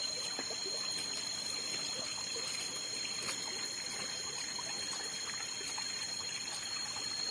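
Water trickling steadily, with a steady high-pitched whine running underneath and a few small ticks.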